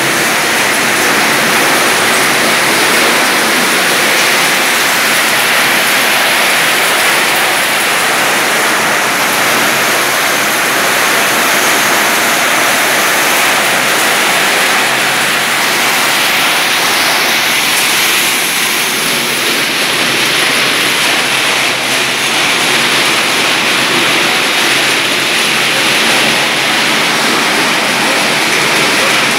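Plastic-bottle label scraper machine running, with bottles churning inside its rotating drum: a loud, steady rushing noise.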